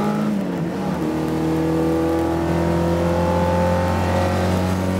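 A classic Alfa Romeo racing car's four-cylinder engine pulling hard under acceleration, heard from inside the cockpit. Its pitch dips once just after the start, then climbs steadily.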